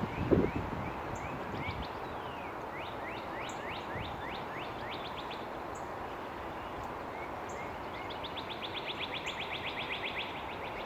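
Songbirds chirping over steady background noise: many quick sweeping chirps, short high notes about once a second, and a fast even trill of rising notes lasting a couple of seconds near the end. A brief low thump right at the start.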